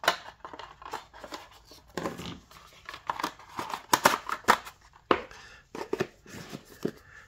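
Hands unpacking a small body camera from its box: packaging rustling and crinkling, with irregular sharp clicks and taps as the camera and box are handled.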